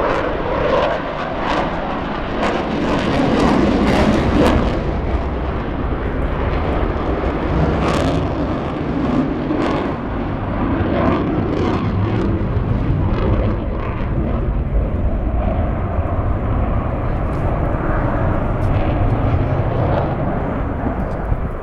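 Eurofighter Typhoon's twin turbofan jet engines at display power with afterburners lit: loud continuous jet noise, rough with frequent crackles, as the fighter flies its display overhead.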